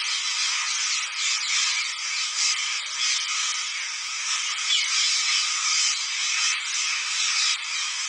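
A large flock of green parrots calling all at once: a dense, continuous, high-pitched din of overlapping screeches and chatter.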